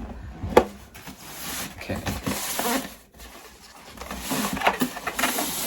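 Packaging around a subwoofer being handled and pulled at: rustling and rubbing, with a sharp knock about half a second in.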